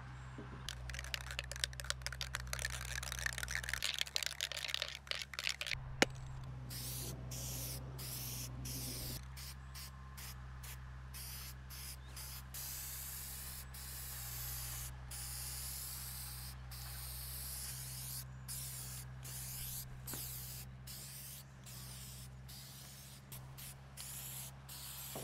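Aerosol can of Rust-Oleum hammered-finish spray paint hissing in many short passes, each cut off by a brief pause, as the first coat goes on. Before the spraying there are a few seconds of crackly rattling and a sharp click about six seconds in.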